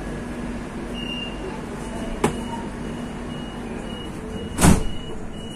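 Metro carriage's door warning beeper sounding a high beep about twice a second over the steady hum of the stopped train, with a sharp click a little after two seconds and a loud thud near the end.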